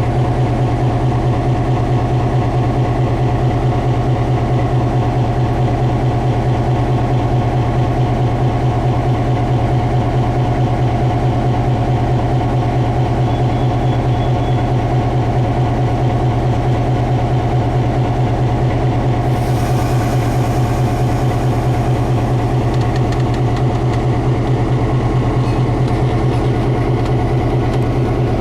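EMD GP9 diesel locomotive's 16-cylinder two-stroke engine idling steadily with a deep, even hum. A higher hiss joins about two-thirds of the way in.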